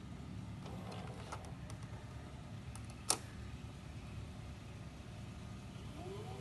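Sharp VC-MH72 VHS VCR's tape transport changing mode: a few soft mechanical clicks, then a sharp clunk about three seconds in. Near the end the reel motor spins up with a rising whine as the tape starts rewinding.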